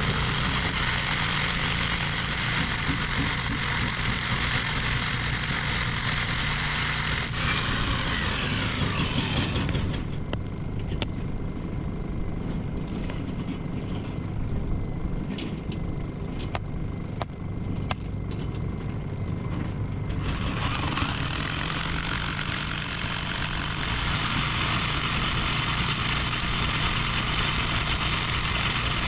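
Heavy excavator running steadily while it works rock, its hydraulic hammer breaking stone. The sound changes abruptly about a third of the way in to a duller stretch with scattered sharp knocks, and returns to the fuller machine noise about two-thirds of the way in.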